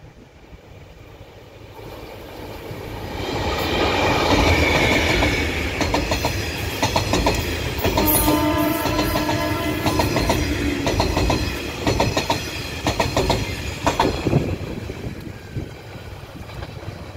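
A Taiwan Railways R-class diesel-electric locomotive hauling three EMU300 multiple-unit sets passes by. It comes in, wheels clattering over rail joints, then fades near the end. A held tone, likely the train horn, sounds about eight seconds in for some three seconds.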